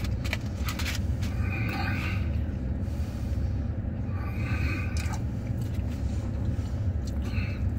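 Steady low rumble of a pickup truck idling, heard inside the cab, with a few brief faint higher sounds about two, five and seven seconds in.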